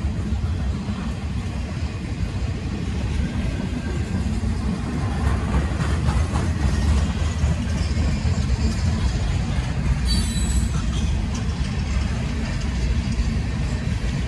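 CSX freight train's loaded flatcars rolling past over a grade crossing: a steady low rumble of steel wheels on rail. About ten seconds in, a brief high-pitched wheel squeal.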